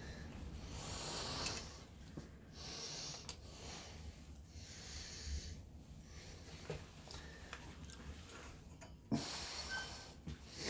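A person breathing through the nose close to the microphone, in repeated soft swells, with a few light metallic clicks as the clutch plates are worked out of the clutch basket.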